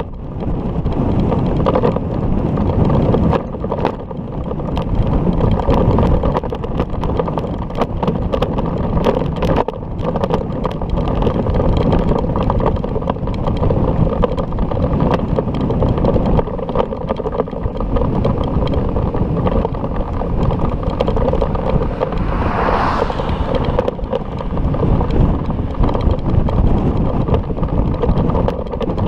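Wind buffeting an action camera's microphone on a moving bicycle, a steady rumble mixed with road noise and frequent small knocks from bumps. About 23 seconds in, a brief brighter hiss-like sound rises above it.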